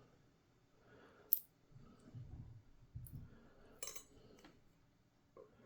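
Small metal clicks and ticks from a euro cylinder lock being stripped, its top pins and springs being worked out of the housing: a sharp tick about a second in and a louder click near four seconds, with soft handling noise between.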